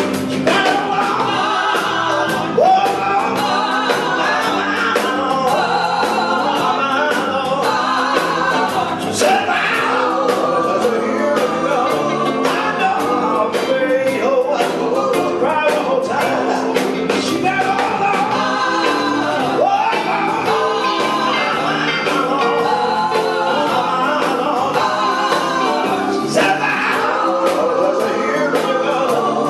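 Background music: a song with singing over instruments and a steady beat.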